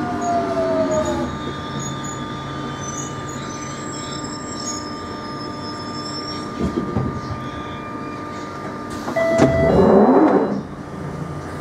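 Jubilee Line 1996 Tube Stock train braking into a station, heard from inside the carriage: the traction motor whine falls in pitch over the first second or so, then steady running rumble. About nine seconds in comes a brief squeal and a louder rush of noise as it draws to a stop.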